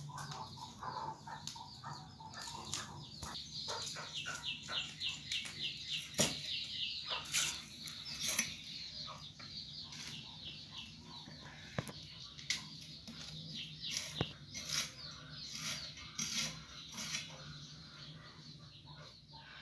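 Faint background bird calls, including runs of rapid trilled high notes, with scattered sharp clicks over a low steady hum.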